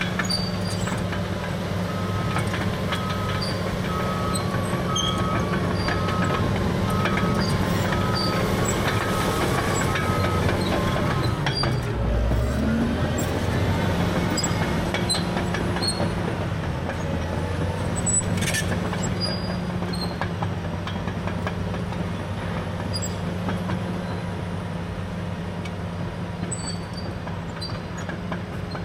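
Caterpillar D6R dozer's C9 diesel running steadily under work, with clanking and knocking from the tracks. A reverse alarm beeps about twice a second until about a third of the way in.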